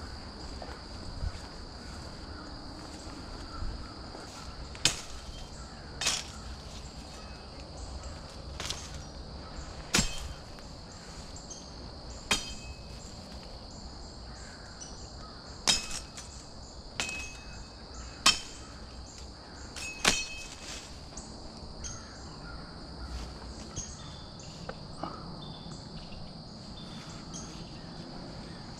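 A machete chopping through brush: about nine sharp, ringing metallic strikes, irregularly spaced over some fifteen seconds, stopping about two-thirds of the way through. A steady high-pitched insect chorus runs underneath.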